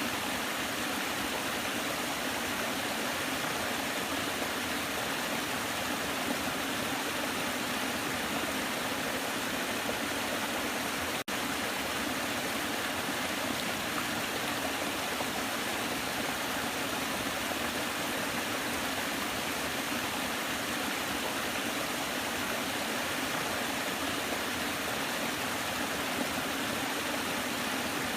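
Waterfall: water pouring in a steady, even rush that drops out for an instant about eleven seconds in.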